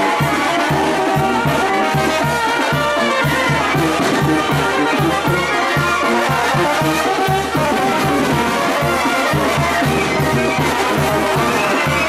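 Brass band playing a lively tune, trumpets and trombones carrying the melody over a steady bass beat, the music that accompanies the marmota dance at a Oaxacan village fiesta.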